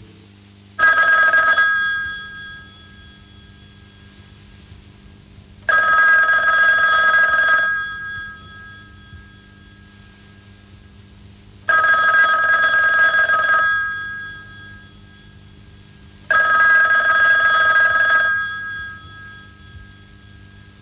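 Old rotary-dial desk telephone's bell ringing: four rings, each about two seconds long and about five seconds apart, with a low steady hum between them.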